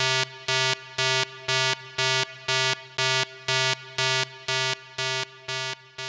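Electronic synth pulse: one buzzy note repeated evenly about twice a second, growing fainter near the end.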